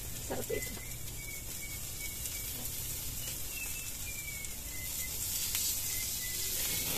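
Chicken inasal sizzling on a charcoal grill, a steady hiss that grows a little louder about five seconds in.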